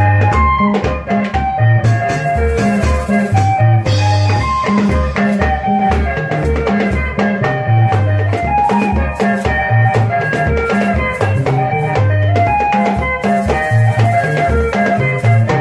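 Congolese soukous dance band playing: a bouncing bass line and interlocking electric guitar lines over a drum kit, with a shaker keeping time.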